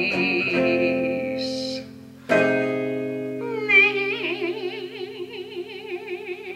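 End of a song for voice and archtop guitar. A held sung note with vibrato fades out, then a final guitar chord is struck about two seconds in and left to ring and die away. From halfway on, a voice hums a wavering note over the ringing chord.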